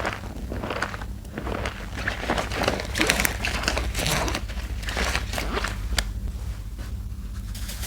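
A soap-soaked sponge squelching and crackling in thick lather as it is squeezed by hand, in a string of separate wet squeezes about one or two a second, easing off near the end.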